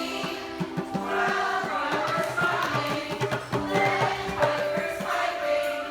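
Music with a group of voices singing, over held instrumental notes and light percussion.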